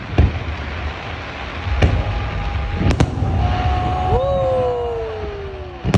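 Fireworks going off: several booms of shells bursting over a constant low rumble, with one sharp crack about halfway through. In the second half, several whistling tones slide slowly down in pitch.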